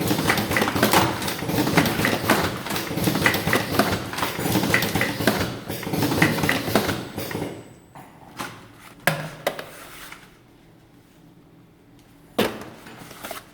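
Vertical automatic cartoning machine, pneumatic and motor-driven, running with a rapid clatter of clicks and knocks. The clatter stops about seven and a half seconds in, leaving a few separate clicks and one sharp knock near the end.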